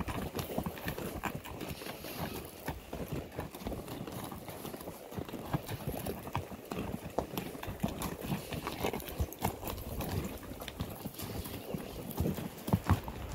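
Horse's hooves clip-clopping along a trail at a walk, an uneven run of hoof strikes.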